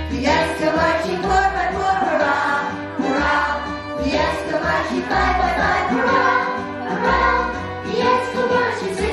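A children's marching song about ants: voices singing a melody over instrumental backing with a bass line.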